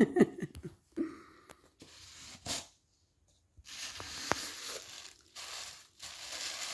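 Gift wrapping and tissue paper rustling and crinkling as it is handled and pulled apart, with a few sharp handling clicks in the first second. After a short pause about three seconds in, the crinkling becomes steady.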